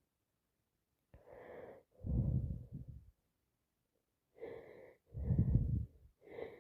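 Heavy, congested breathing of a person with a head cold, through a blocked nose. It comes twice as a pair: a softer breath, then a louder, deeper breath about a second long.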